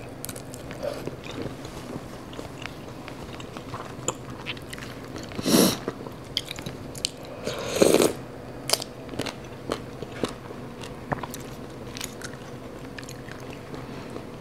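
Close-up chewing and crunching of spicy papaya salad with shredded raw green papaya: many short crisp crunches, with two louder, longer mouthfuls about five and a half and eight seconds in.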